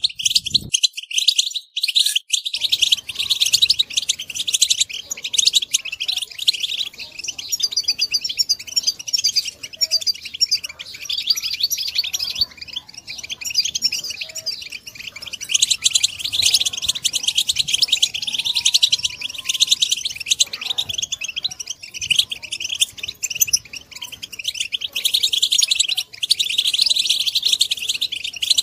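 Several European goldfinches chattering and twittering at once, a dense, unbroken stream of rapid high chirps and trills.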